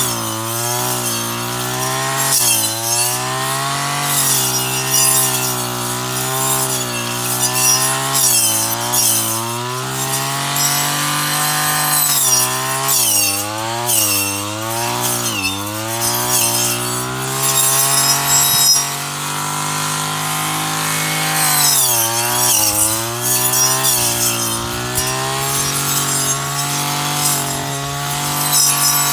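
Shoulder-slung petrol brush cutter running at high revs, its engine pitch dipping and recovering again and again as the blade takes load cutting through tall, thick grass, with the hiss and swish of the cut grass over it.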